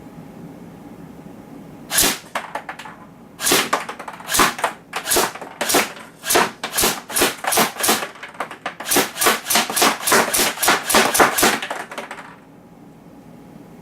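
Cyma M14 airsoft electric rifle (battery-powered AEG) fired in semi-automatic, one shot at a time: a single shot about two seconds in, then a string of some twenty sharp shots at roughly two a second, stopping about a second before the end.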